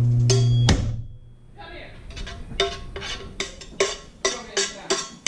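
Metal utensil tapping and scraping in a nonstick frying pan, stirring garlic: sharp clinks about two or three a second, starting about two seconds in. Before that a steady low humming tone holds and cuts off under a second in.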